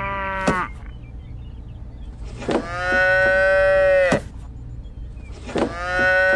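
Cow mooing: the tail of one moo just after the start, then two long, steady moos about three seconds apart, each lasting about a second and a half.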